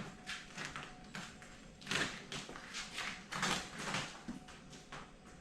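Vinyl wrap film being worked onto a car hood: irregular swishing and scraping strokes, a few a second, the strongest about two seconds in.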